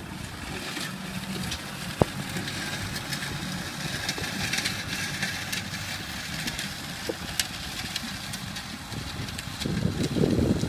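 Diesel farm tractor engine running steadily while pulling a disc harrow through tilled soil. There is one sharp click about two seconds in, and the sound grows louder near the end.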